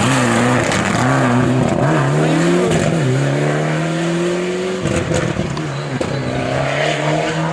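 A Mitsubishi rally car's engine working hard through the gears. Its note climbs, dips at shifts and climbs again, with a long rising pull about three seconds in that breaks off sharply around five seconds, then carries on at a lower, steadier pitch.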